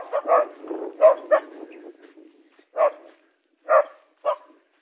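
Dogs barking at a king cobra: about seven short barks at uneven gaps, with a low growling rumble under the first barks.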